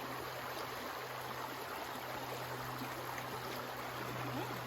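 Shallow creek water flowing steadily.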